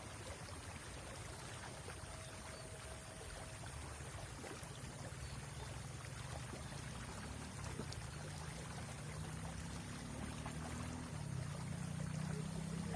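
Village river water flowing steadily, with a low hum underneath that grows a little louder near the end.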